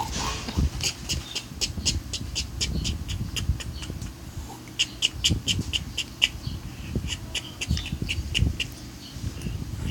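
Snoring in runs of fast clicking rattles, about eight a second, two stretches of a few seconds each, over a low irregular breathing rumble.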